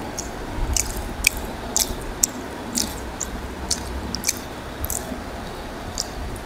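Close-up eating sounds: fingers squishing and mixing rice with curry on a plate, with wet chewing and lip smacks heard as short, sharp, irregular clicks, about one or two a second, over a low steady hum.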